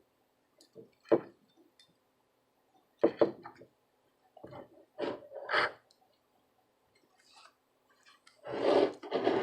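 Small clicks and clinks of tools and parts being handled during soldering work, a few separate knocks, then about a second of rubbing or scraping near the end.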